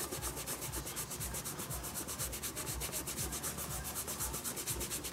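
A cloth rubbing over the leather of an old Wilson A2000 XLC glove in quick, even back-and-forth strokes, wiping dirt and stains off the leather with cleaner.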